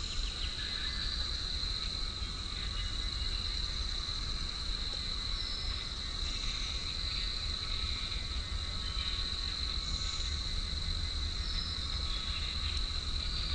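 Steady high-pitched drone of buzzing insects over a low wind rumble. A bird gives a short high call twice, about six seconds apart.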